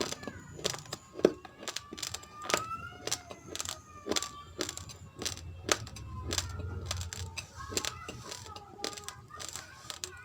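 Raw rice grains being chewed: sharp, irregular crunches about twice a second, with a short lull about six seconds in.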